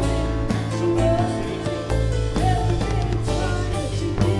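Church worship music: a drum kit, bass and sustained chords, with a voice singing over it.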